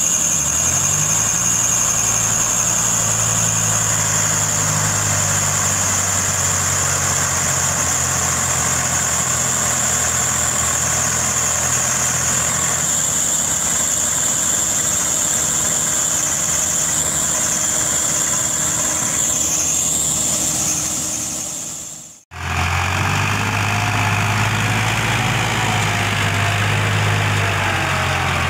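Diesel tractor engines running steadily under load while a loaded trolley is pulled across soft field soil. About three-quarters of the way through, the sound cuts out for an instant and resumes with a second tractor's engine.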